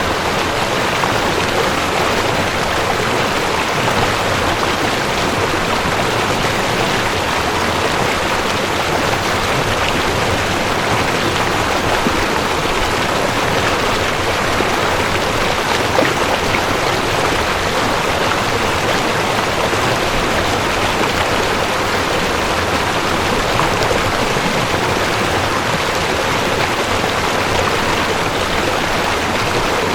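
Mountain stream rushing over rocks: a steady, even wash of running water.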